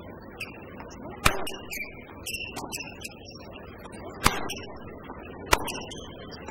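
Tennis ball struck by rackets in a rally on a hard court: three sharp hits, about a second in, past four seconds, and again a second later, over a steady background murmur.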